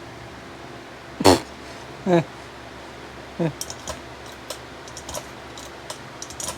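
Three short falling cries, the first the loudest, followed by a series of light clicks and taps of small parts being handled.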